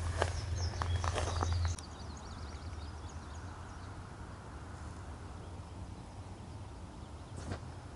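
Footsteps through tall grass over a low hum, with birds chirping; about two seconds in, this cuts off abruptly to faint outdoor ambience with a few bird calls.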